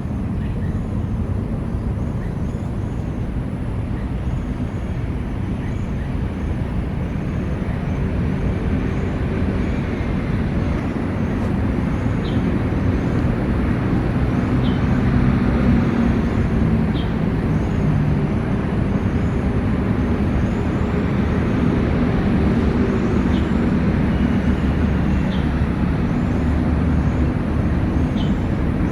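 Steady rumble of city road traffic. Faint high chirps repeat through it, with a few short high pips every couple of seconds in the second half.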